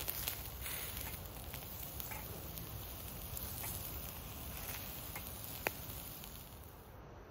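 Food sizzling on a wire grill over glowing charcoal, a steady sizzle with small crackles and pops, and one sharper click nearly six seconds in.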